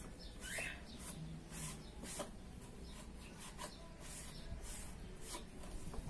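Dry sponge rubbing the dust off plastic fan blades: a series of short scratchy strokes, about two a second, with a brief squeak about half a second in.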